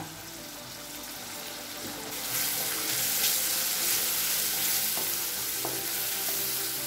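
Onions, tomato and freshly added chilli powder and garam masala sizzling in oil in a kadai while being stirred, with a few short scrapes of the utensil on the pan. The sizzle grows louder about two seconds in as the stirring starts. This is the masala being sautéed to cook off the raw chilli powder.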